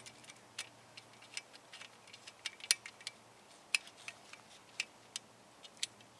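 Irregular light metallic clicks and taps as a fastener on a mini milling machine is tightened to lock a slide.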